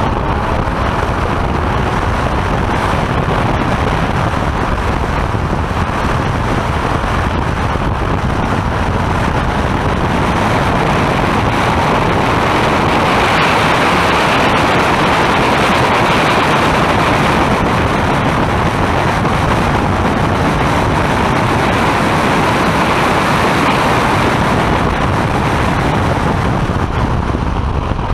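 Steady rush of wind and road noise from a sports car at track speed, heard from a camera mounted on the outside of the car, with the engine beneath it. It gets a little louder through the middle, along a straight.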